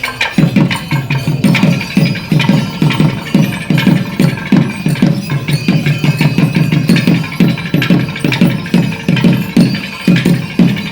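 Loud drumming from a percussion ensemble in a fast, driving rhythm, with ringing higher tones held above the beat.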